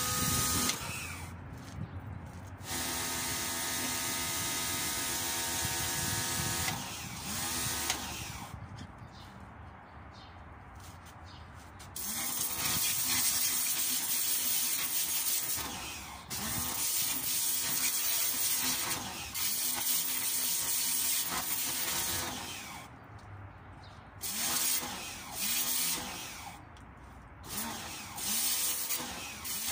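Black & Decker BXPW1300 electric pressure washer running in spells, its motor and pump starting and stopping several times as the spray gun trigger is worked, with the hiss of the water jet while it runs and the motor pitch gliding up and down at each start and stop.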